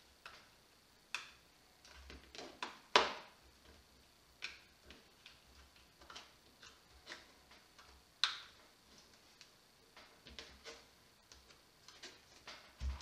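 Scattered small clicks and crinkles as stiff bubble-textured plastic film is worked under the metal wire clamp on an orbital sander's pad, with the loudest click about three seconds in.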